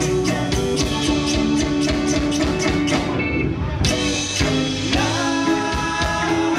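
Live Latin rock band playing, with timbales, electric guitars, bass and violin over a steady beat. About three seconds in the percussion briefly drops out, and the full band comes back in on a strong hit.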